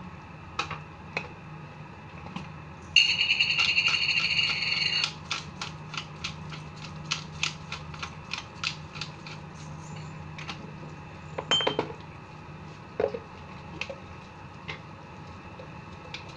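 Glass-jar pepper grinder being worked by hand: a dense rattling burst for about two seconds, then a run of sharp grinding clicks, about four a second, followed by a few scattered knocks. A steady low hum runs underneath.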